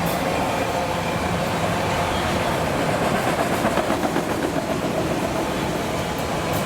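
CSX freight train rolling past, steel wheels running on the rails with a steady rumble. Around the middle, a regular clatter comes through as the wheels cross the rail joints.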